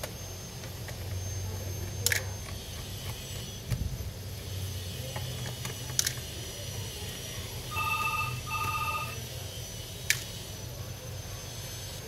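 Two short electronic beeps in quick succession, like a phone tone, about eight seconds in, over a steady low hum. A few sharp single clicks fall in between, as of small tools or screws handled on the work surface.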